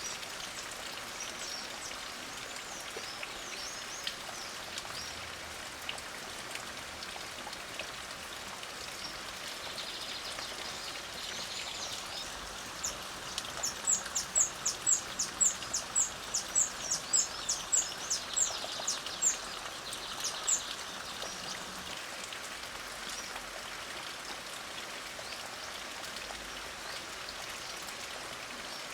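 Light rain falling steadily, with birds calling faintly. Midway, one bird sings a run of loud, high, sharp notes, a little over two a second for about seven seconds.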